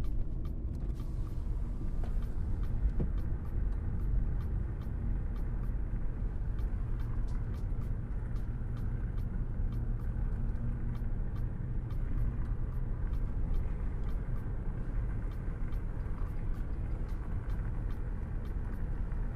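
Car driving on a highway: a steady low rumble of road and engine noise, with faint, regular light ticks about twice a second.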